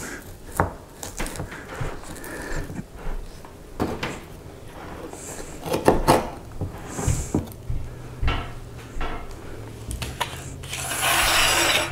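Knife and pie server clicking, knocking and scraping against the pie dish as a slice of frozen ice cream pie is cut and lifted out, with a louder rasping scrape about a second long near the end. A faint low hum runs under the last third.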